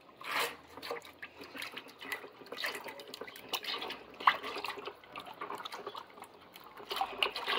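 Lye (caustic soda solution) being poured into a plastic bucket of warm tallow and alcohol while a paddle stirs the mix: irregular splashing and sloshing of liquid, the lye being added to the fats to start the soap.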